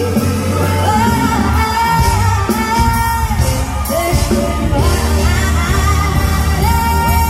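A woman singing a pop song with full band backing, holding long notes with vibrato about a second in and again near the end.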